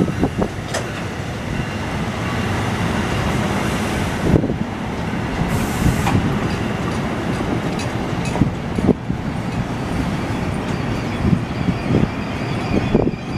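NJ Transit bi-level commuter coaches rolling past as the train arrives, a steady rail rumble broken by irregular clunks and clicks of the wheels over the track.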